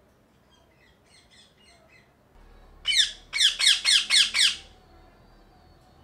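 Indian ringneck parakeet calling: about three seconds in, a loud run of about seven shrill squawks, each a short falling screech, one and then six in quick succession. Faint chirps come before it.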